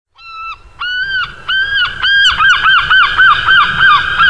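A run of about a dozen honks: a few longer ones, then quicker, shorter ones at about four a second. A steady rushing noise sits underneath from about a second in.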